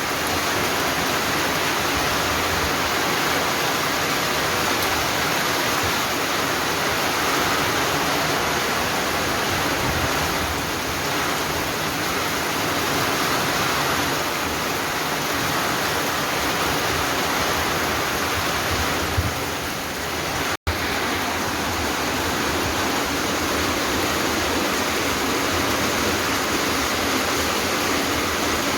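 Heavy rain pouring down steadily in a thunderstorm, an even hiss that breaks off for an instant about two-thirds through.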